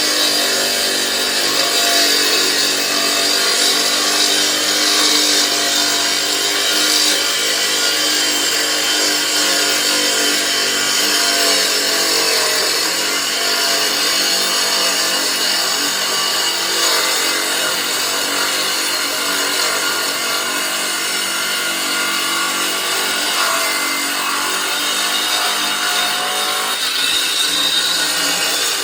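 A loud power saw running and cutting steadily without a break.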